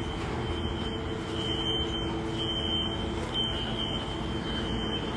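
Fire alarm sounding: a high-pitched beep repeating about once a second, each beep about half a second long. A steady low hum runs underneath.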